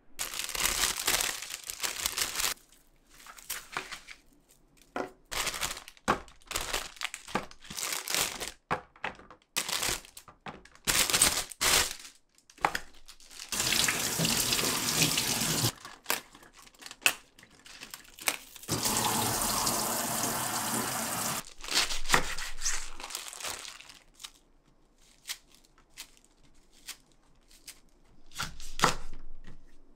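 Kitchen tap water running over vegetables rinsed by hand, in two stretches of a few seconds each. Between them are short handling noises: clicks, knocks and rustling. Near the end, a cluster of enoki mushrooms is torn apart by hand.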